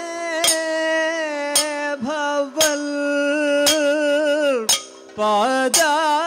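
Kathakali singing: a male singer holds long, gliding melismatic notes on a devotional line, with a short breath break near the end. A sharp percussive stroke marks time about once a second.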